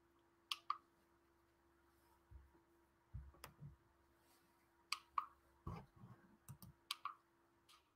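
Faint, irregular clicks at a computer, about ten in all, with a few soft low knocks between them.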